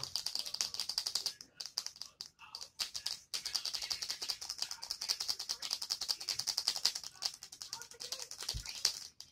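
Slime-kit ingredients being poured and handled: a rapid, even stream of small clicks and rattles, broken briefly about a second and a half in and again around three seconds.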